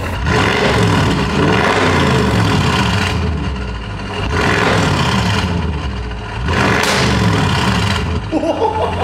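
Audi RS7's twin-turbo 4.0 V8 revved three times through an exhaust whose muffler has been replaced by a straight pipe, the exhaust valve flaps open; each rev rises and falls back to idle, the first the longest.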